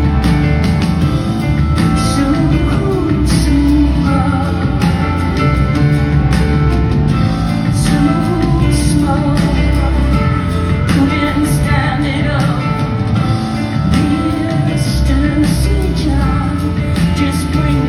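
Live band music at a concert: a woman singing over a full band with steady drum hits, heard in a large hall.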